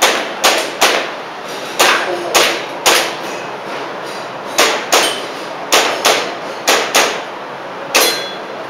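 Airsoft pistol firing a stage string: about thirteen sharp cracks at uneven spacing, many in quick pairs about half a second apart, with short pauses between groups of shots.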